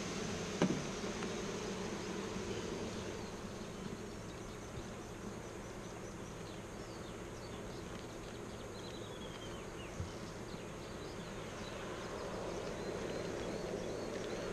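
Honeybees in an opened hive buzzing in a steady, dense drone. A sharp knock comes just under a second in and a fainter one about ten seconds in.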